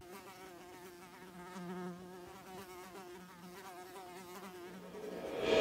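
Faint insect buzzing, its pitch wavering throughout.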